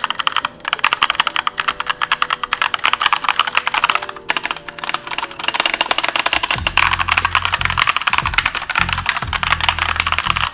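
Fast typing on a Keychron K2 mechanical keyboard: a dense run of key clacks with a few brief pauses. Background music plays under it, with a bass line coming in about two-thirds of the way through.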